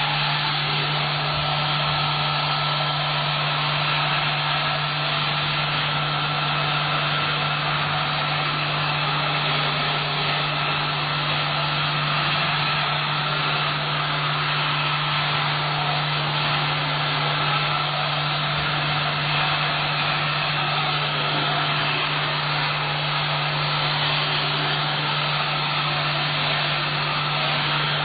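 Vacuum cleaner running continuously at a steady pitch: an even motor hum with a high whine and rushing air.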